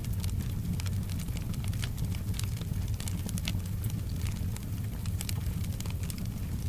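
Wood fire crackling: irregular sharp pops and snaps over a steady low rumble, with soft rain faintly behind it.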